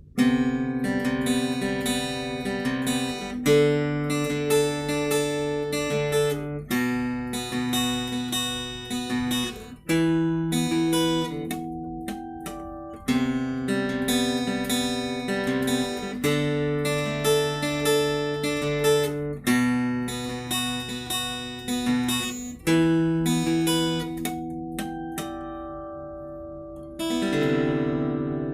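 Ibanez AEL40SE acoustic-electric guitar, solid spruce top with flamed sycamore back and sides, played in chords that change every few seconds, with a final chord struck near the end and left to ring.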